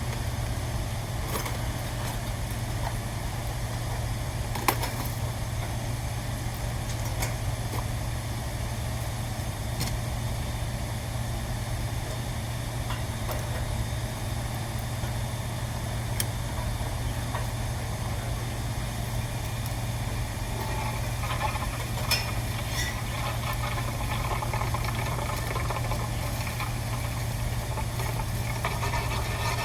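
A steady low machine hum, with a few light clicks or taps and some clattering near the end.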